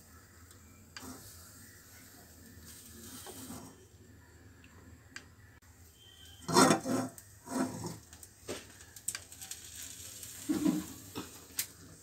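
Heavy cast-iron karahi being handled and shifted on a gas-stove grate: a few short bouts of metal scraping and knocking, the first and loudest a little past halfway, then a few sharp clicks.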